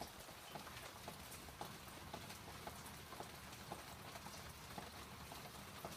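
Light rain pattering on a paved garden path and leaves, with scattered drops ticking irregularly, several a second.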